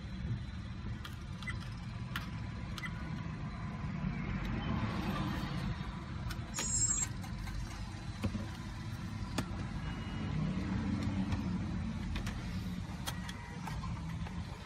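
A car idling, a steady low rumble heard from inside the cabin. Scattered light clicks and some rustling come from handling a dash camera, its cable and a plastic bag of parts.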